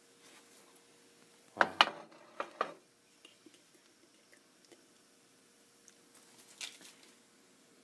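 A ceramic plate knocking against the stovetop as it is set down: a quick cluster of sharp clinks and knocks about a second and a half in, two more just after, and one fainter clink near the end.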